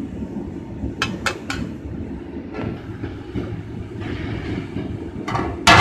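Large aluminium pot of chickpeas boiling over the fire, a steady low rumble. A few light metal clinks come about a second in, then a loud metallic clang with a ringing tail near the end as metal meets the aluminium pot lid.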